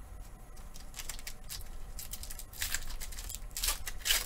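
Foil Pokémon booster pack wrapper crinkling and tearing as it is handled and opened, in short rustles about two and a half seconds in, again around three and a half seconds, and near the end.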